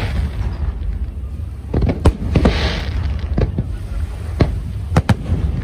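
Aerial fireworks bursting: a series of sharp bangs about two, three and a half, four and a half and five seconds in, with a hissing crackle around two and a half seconds, over a steady low rumble.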